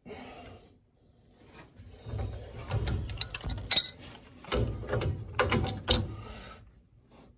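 Large steel pipe wrench turning a threaded gas pipe joint tight: irregular metal clicks and scrapes as the wrench jaws bite and slip on the pipe and the doped threads turn. The sharpest click comes a little under four seconds in.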